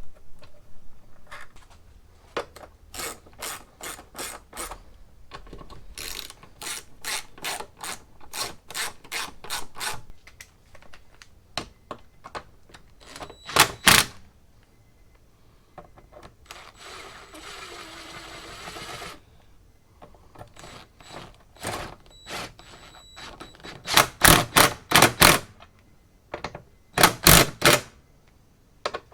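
Ratchet wrench clicking in runs of quick, even strokes as a part is bolted in, with louder runs of clicks later on and a short rustling stretch about two-thirds through.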